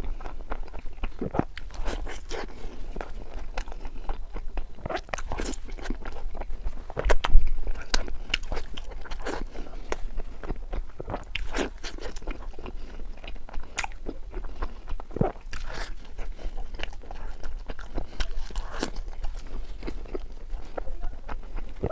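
Close-miked biting and chewing of a flaky baked pastry: many short crisp crunches throughout, with the loudest bite about seven seconds in.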